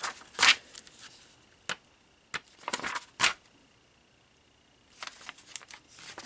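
Paper pages of a printed instruction booklet being turned and handled: a few short rustles and flaps with pauses between, then a quick run of rustling near the end.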